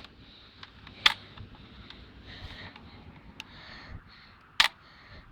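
Three sharp mechanical clicks, the first right at the start, the second about a second later and the third near the end, with a few fainter ticks and light rustling between them.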